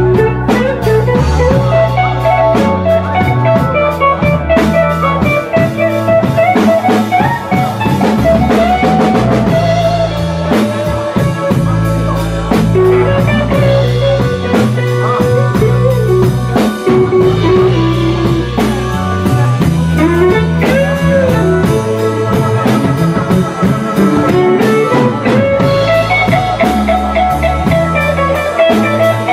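Live blues band playing a slow instrumental passage: an electric guitar plays a lead line with bent notes over drums and keyboard.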